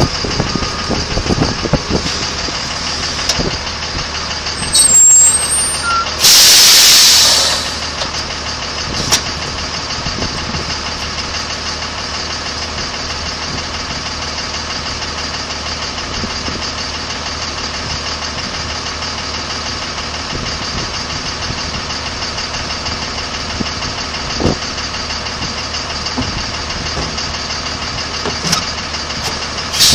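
Heavy diesel machinery engine running steadily, with a short squeal about five seconds in and then a very loud burst of noise lasting just over a second.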